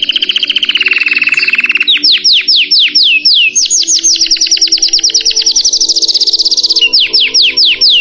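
Belgian canary singing: fast rolling trills of rapidly repeated notes, broken about two seconds in and again near the end by slower runs of falling whistled notes.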